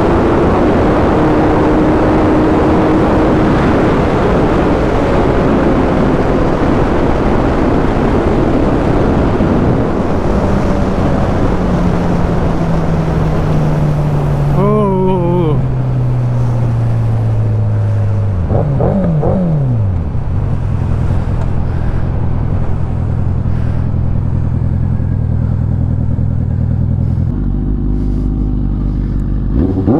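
Suzuki Hayabusa's inline-four engine under heavy wind rush at highway speed, then its note falling steadily as the bike slows, with quick throttle blips on the downshifts about halfway through and again a few seconds later. It then settles to a steady idle, and near the end the sound changes to another engine.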